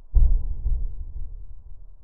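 A deep cinematic boom, a dramatic suspense hit sound effect, strikes just after the start and dies away slowly over the next couple of seconds.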